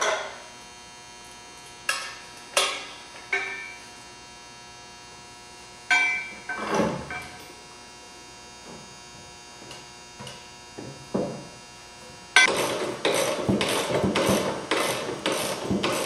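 Scattered metal clinks and knocks as a steel wall bracket, a washer and a 3-inch lag screw are handled and fitted. For the last few seconds comes a quick run of repeated strokes as the lag screw is turned into the wood stud, about two to three a second, over a steady background hum.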